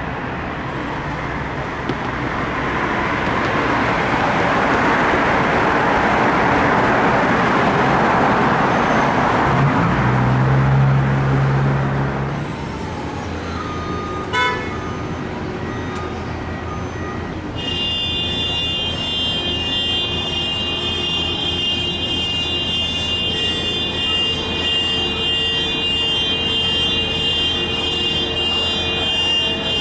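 Road traffic rushing past, with a low horn sounding for about two seconds around ten seconds in. After that the traffic noise drops to a quieter steady hum, with a thin high whine joining it a little past halfway.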